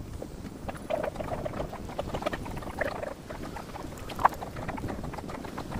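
Hands cleaning grasshoppers: scattered small crinkles, clicks and scratches as the insects are pulled apart and the plastic bag is handled, with one sharp click about four seconds in, over a low steady rumble.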